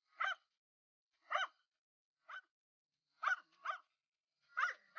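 A dog barking: short single barks about a second apart, with a couple of quick doubles near the end, roughly seven barks in all.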